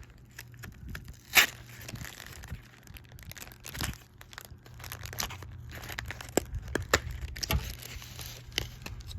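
Candy packaging being unboxed by hand: crinkling and tearing of plastic wrap and box, with scattered crackles and one sharp crack about a second and a half in.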